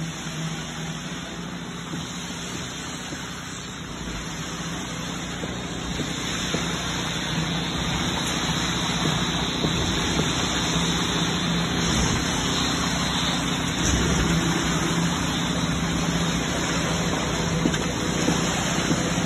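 Steady machinery drone during a concrete pour, the concrete pump running as it feeds concrete through the hose onto a rebar-reinforced slab, with a steady low hum underneath. It grows a little louder after the first few seconds.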